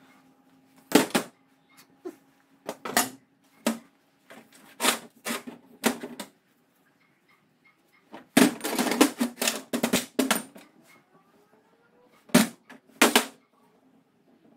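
Machined steel parts of a buggy chain-drive spool (brake disc, carrier plate, bearing housing) knocking and clinking as they are handled and set down on a metal workbench: irregular sharp knocks, with a dense clatter around the middle.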